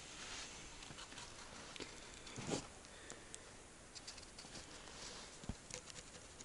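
Faint, near-quiet background with scattered light ticks and small knocks, the loudest a short knock about two and a half seconds in and a dull thump about five and a half seconds in.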